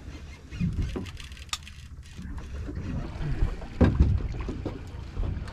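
Wind buffeting the microphone over the low rumble of a boat at sea, with a few knocks and bumps, the loudest about four seconds in.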